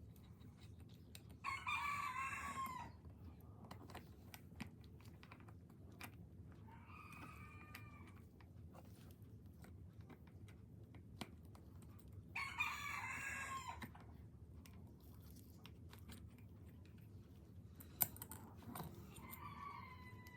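A rooster crowing four times, each crow about a second and a half long, the ones near the start and about twelve seconds in louder than the other two. Light clicks sound between the crows, with a sharp one near the end.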